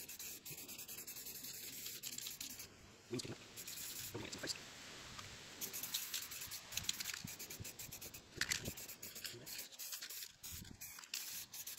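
Aerosol can of black satin spray paint hissing in several long bursts, with brief breaks between them and a few light clicks.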